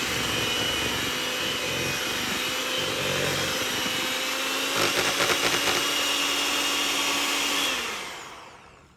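Electric hand mixer running steadily, its beaters churning a thick peanut butter and cream cheese pie filling, with a brief rattling about five seconds in. Near the end it is switched off and winds down, its whine falling in pitch and fading away.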